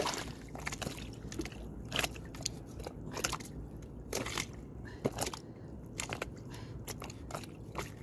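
Knife cutting through a fish's skin and flesh as it is cleaned, a string of irregular crunching clicks over a low steady hum.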